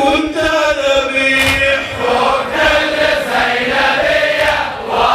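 Male voices chanting a Shia Muharram lamentation (latmiya) in Arabic, a slow melodic refrain sung with long held, wavering notes.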